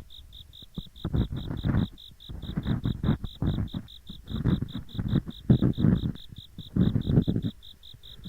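Gori-gori ear-pick scraping: rough, irregular scratching and rubbing strokes against a binaural microphone's ears, both sides at once. Behind it, autumn insects chirp steadily at about six pulses a second.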